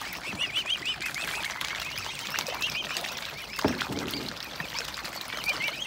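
Mute swan cygnets peeping, a quick run of short rising-and-falling whistles repeated over and over, while they dabble feed pellets from shallow water with light splashing.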